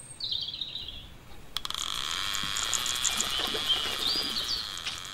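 Outdoor nature sound: birds chirping, then from about a second and a half in a dense, steady chirring chorus, with a few more bird chirps over it.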